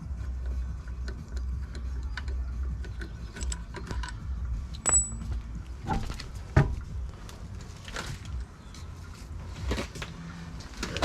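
Scattered metallic clinks and knocks of tools and parts being handled, a few sharper knocks midway, over a low steady hum.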